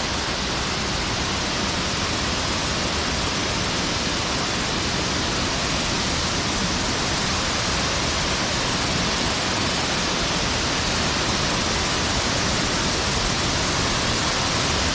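Waterfall: the steady rush of falling water, loud and unbroken.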